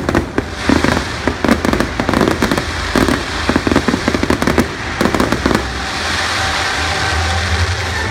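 Fireworks display: a rapid run of bangs and crackling from aerial shells bursting overhead, densest through the first five seconds or so, then thinning to a steadier crackle.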